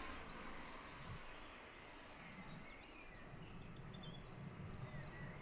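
Quiet room tone with a low steady hum and a few faint, distant bird chirps.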